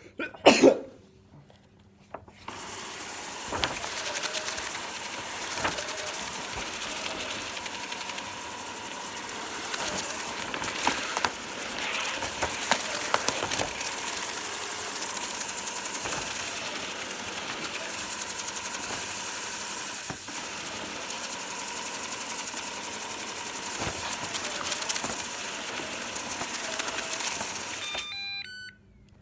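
Roomba robot vacuum running: a steady mechanical noise with a constant tone and scattered clicks and rattles. It stops abruptly near the end and is followed by a few short beeps. A single short, loud burst comes about half a second in, before it starts running.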